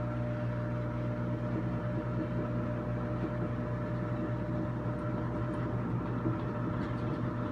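Kenmore stackable washer running its spin cycle: a steady motor hum with a constant pitch.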